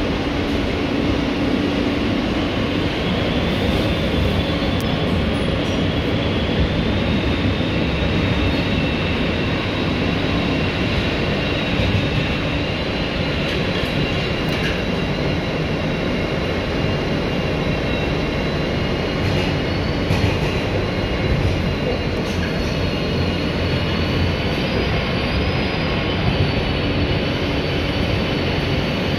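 Running noise inside a moving R160A subway car: a steady rumble of wheels on rail. Over it runs a thin high whine that slowly rises in pitch.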